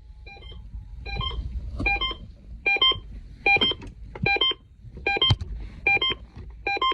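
Emergency alert tone for an AMBER Alert: a short electronic multi-tone chirp repeating about every 0.8 s, nine times, over a low rumble.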